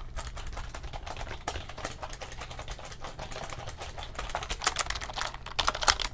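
Keys of an Acer wireless keyboard clicking and clattering under rapid typing, with a few louder clicks near the end.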